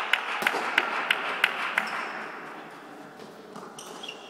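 Badminton rackets striking a shuttlecock in a fast doubles exchange: six crisp hits, about three a second, echoing in a sports hall. The rally stops about two seconds in.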